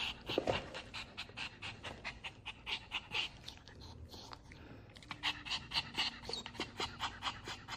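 Maltese dog panting fast and evenly, with a brief pause about halfway through.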